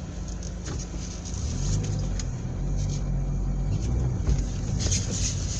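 Car driving, a steady low engine and road rumble, with a few light clicks and knocks.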